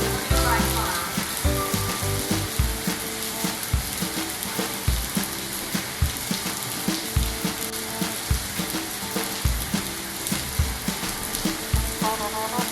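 Steady hiss of heavy rain mixed with background music that has held notes and a slow, even kick-drum beat, a little under one beat a second.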